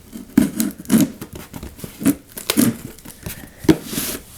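Packaging being handled during an unboxing: crinkling and tearing in irregular bursts, with light knocks, and a longer tearing stretch near the end.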